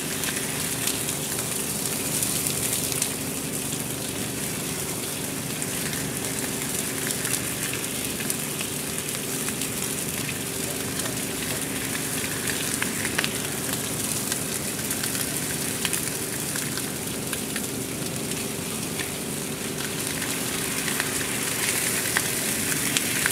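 Large open fire burning around plastic totes: a steady rushing noise full of small crackles and pops, with a faint steady hum underneath.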